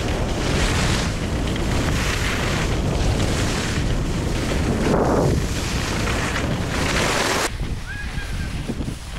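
Wind buffeting the microphone while skiing downhill, with the skis hissing over packed snow in swells about once a second as the skier turns. The ski hiss stops about three-quarters of the way through, leaving the wind rumble.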